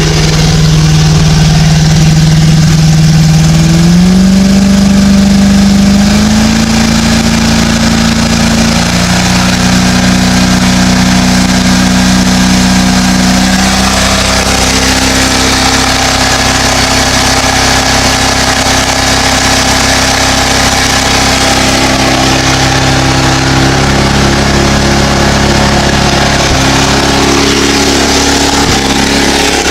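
Deck boat engine, its carburetor freshly rebuilt, running under load without cutting out. Its pitch climbs in steps over the first several seconds as it speeds up, then holds steady.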